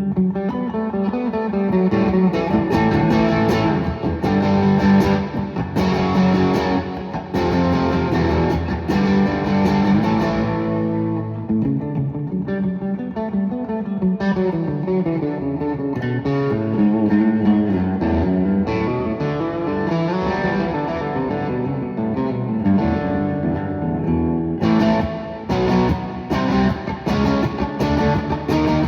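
Guitar music with plucked melodic notes, played steadily throughout, thinning out for a few seconds partway through before filling out again near the end.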